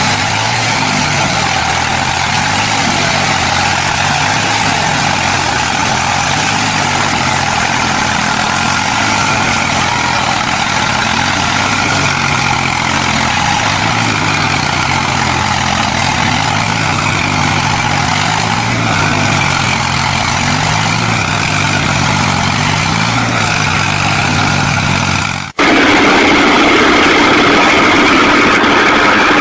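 Tractor diesel engine running steadily under load. About 25 seconds in it cuts off abruptly and a louder engine with a higher whine takes over.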